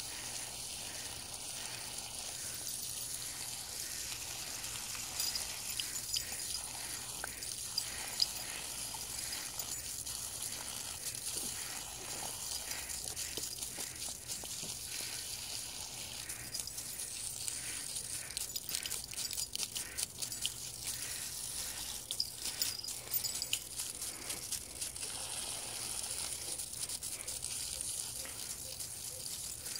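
Water jetting from a garden hose and splattering onto grass, a steady hiss with many small irregular ticks.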